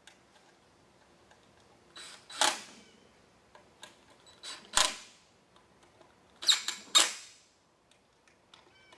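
Cordless drill driving the faceplate screws on a hot tub pump in four short bursts, the last two close together, with the drill's clutch set low to limit the torque as each screw is locked down in a cross pattern.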